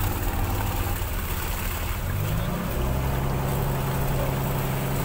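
Fishing boat's engine running steadily; about two seconds in its pitch rises as it speeds up, then holds at the higher note.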